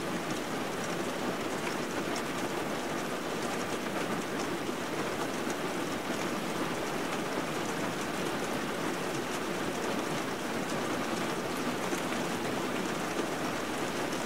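Steady rain: an even hiss of falling rain with scattered drop patter.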